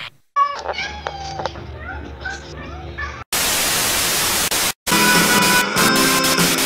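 A few short, high cat meows and clicks over a low hum, then a sudden burst of loud TV-style static about three seconds in. The static cuts out for a moment near the end, then returns with music playing under the hiss.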